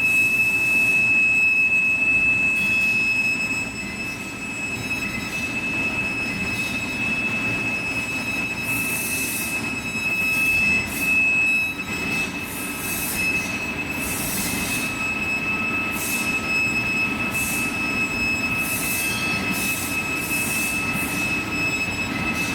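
Machine tool cutting an AISI D2 tool-steel die block, with one steady high-pitched whine over a running machine noise and repeated short bursts of hiss.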